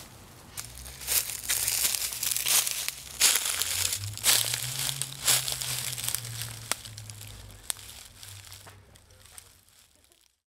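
Footsteps crunching through dry dead leaves and brush, an irregular crackling that fades out near the end.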